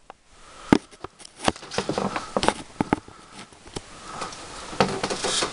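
Handling noise: a quick series of sharp clicks and knocks over light rustling, the loudest knock under a second in.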